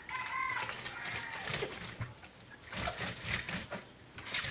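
Soaked paper pulp being squeezed and kneaded by hand in a basin of water: irregular wet squelches and splashes, broken down into pulp for papier-mâché. A short high call, one held note, is heard right at the start.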